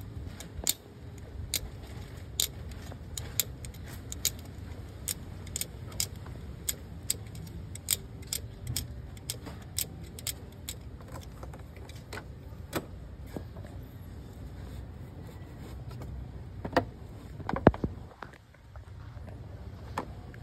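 Sharp metallic scraping clicks, about two a second and irregular, from a blade scraping a wire or terminal clean, over a low steady hum. A louder clatter comes near the end.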